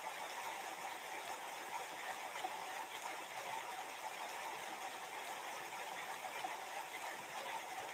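Steady, even background hiss of room tone, with no distinct events.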